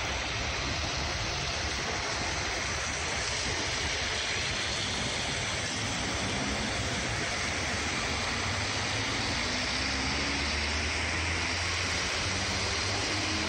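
Steady street traffic noise: cars and buses passing on a snowy road, their tyres washing through the slush, with a faint low engine hum.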